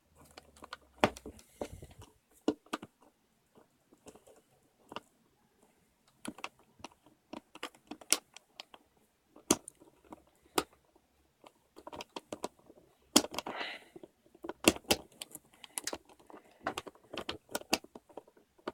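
Irregular sharp plastic clicks and taps as the pieces of a disassembled Dayan Zhanchi 3x3 speedcube are handled and pushed back into place during reassembly.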